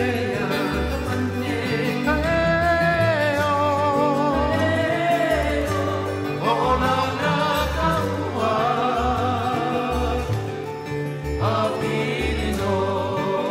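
Background music: a song with a singing voice holding long notes with vibrato over a steady bass line.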